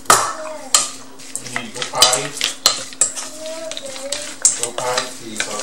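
Shredded green mango salad being tossed and stirred in a stainless steel mixing bowl. The wet shreds crackle, and there are repeated sharp clinks and scrapes against the metal.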